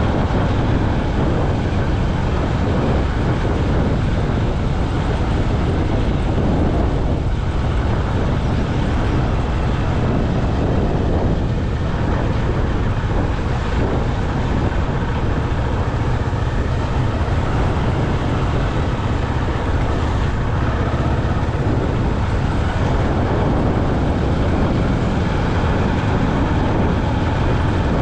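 Motorcycle on the move, its engine running steadily under road and wind noise.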